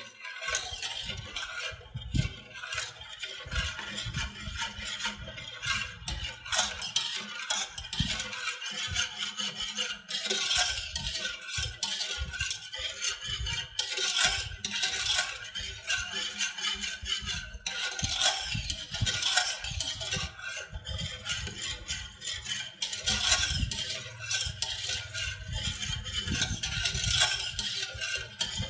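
Wire whisk stirring milk in a metal pot: a continuous swishing and scraping, with many quick clicks of the wires against the pot, as yogurt starter is mixed evenly into the warm milk.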